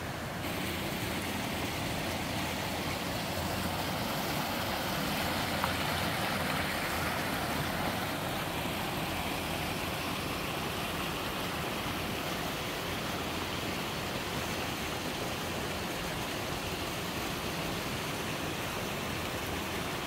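Shallow mountain stream running over rocks and a small waterfall: a steady rushing of water that brightens slightly about half a second in.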